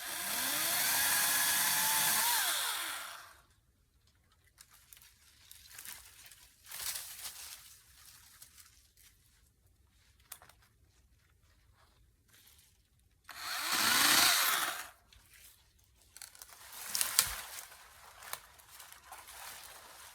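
Ryobi 40V battery chainsaw with a 14-inch bar running in two short bursts, each opening with a rising whine as the electric motor spins up: the first lasts about three seconds, the second about two seconds and starts some thirteen seconds in. Between and after the bursts there is quieter rustling and a few sharp snaps.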